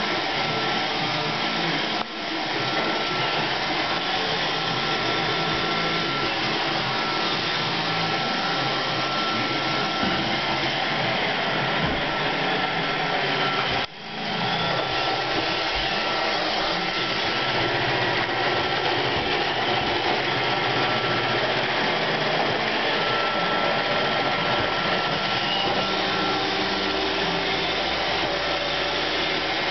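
iRobot Roomba 531 robot vacuum running, a steady motor and suction noise with a thin whine over it; the sound dips briefly twice, about two seconds in and again near the middle.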